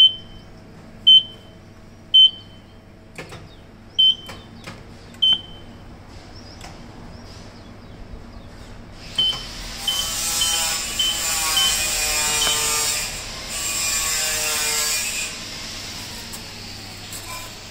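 Electronic control panel of a Europa bakery oven beeping as its dial is turned and pressed: five single sharp beeps about a second or two apart, then a quick run of about seven short beeps. Together with that run, a loud rushing hiss starts, breaks off briefly and stops about six seconds later.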